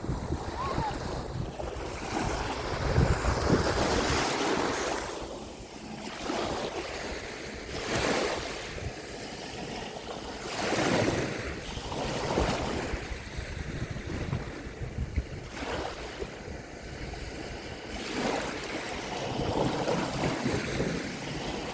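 Sea waves breaking and washing up the shore, swelling and fading every few seconds, with wind buffeting the microphone.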